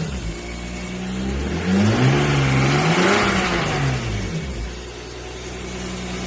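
1994 BMW 325i's inline-six engine idling, revved up once and let fall back to a steady idle. It runs smoothly with the intake vacuum leak fixed.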